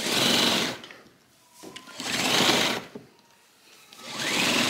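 Fabric Roman shade being pulled down by hand in three strokes, each about a second of whirring rasp; the last stroke rises and then falls in pitch.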